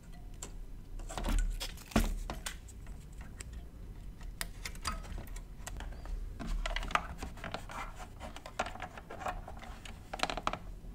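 Hands handling and turning over a ZX Spectrum+'s plastic case, with scattered scrapes and knocks, then the clicks of keys pressed on its keyboard, busiest near the end.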